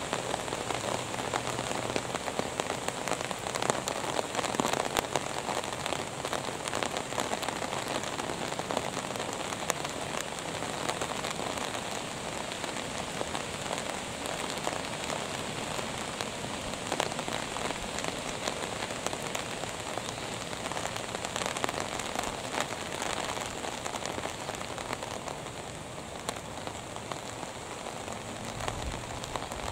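Steady rain falling: a dense patter of individual drops over an even hiss, a little heavier in the first few seconds.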